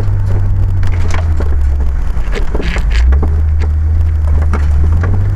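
An off-road 4x4's engine running with a steady low drone as it drives a rough forest track, over many irregular knocks, cracks and scrapes from the body bumping and brushing through branches.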